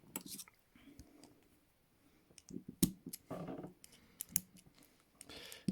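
TCH 840 steel handcuffs being closed on wrists and double-locked: scattered metallic ratchet clicks with a few handling rattles, the loudest click a little before the middle.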